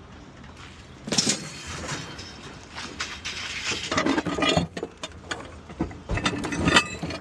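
Metal parts of a commercial drink cooler clanking and rattling as it is handled for scrap, in three irregular spells of knocks and rattles.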